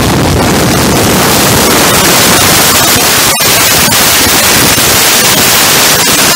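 Loud, steady wind noise buffeting the microphone of a camera riding on a motorcycle at highway speed, drowning out any engine sound, with a brief dropout a little over three seconds in.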